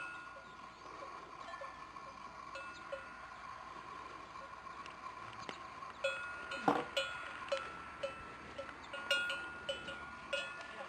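Several cattle bells clanking and ringing irregularly as the animals move, with a sharper, louder run of clanks from about six seconds in.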